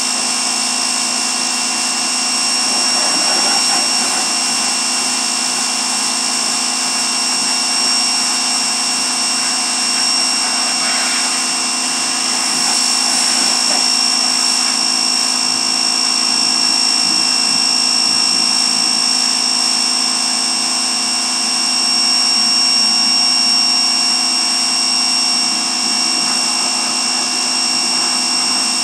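Pressure washer running steadily, a constant engine or motor note with a steady high whine from the pump.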